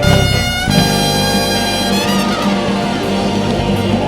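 Lively praise-and-worship band music, with held chords over a strong, moving bass line.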